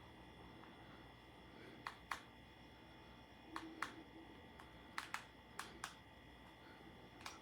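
Quiet room with a faint steady hum, broken by sharp clicks that come mostly in pairs a fraction of a second apart, about five times.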